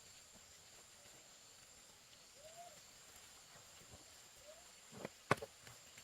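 Quiet rural ambience: a steady high insect drone, three short rising-and-falling animal calls, and a few sharp knocks about five seconds in, one of them the loudest sound.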